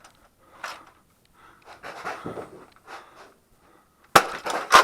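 Breath and movement noises from a player darting around during an office Nerf battle, in short scattered puffs. Near the end a sudden loud run of sharp clacks.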